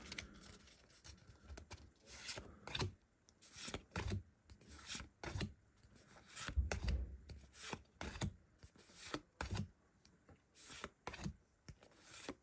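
Pokémon trading cards being slid over one another and flicked through by hand: irregular short papery swishes and rubs.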